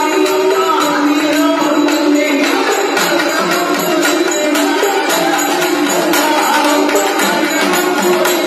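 Tamil temple festival music: fast drumming with jingling percussion under a sustained melody line.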